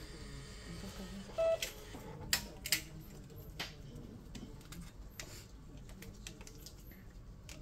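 A short electronic beep about one and a half seconds in, followed by a few sharp clicks and taps over a low room hum.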